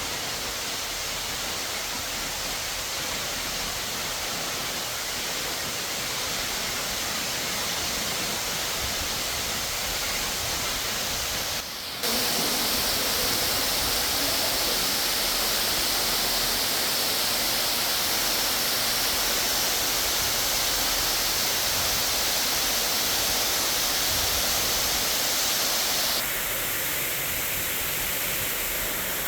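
Large waterfall pouring, a steady, loud rush of water. Just before twelve seconds in, the rush briefly dips and then comes back brighter and a little louder; about twenty-six seconds in, it changes abruptly again.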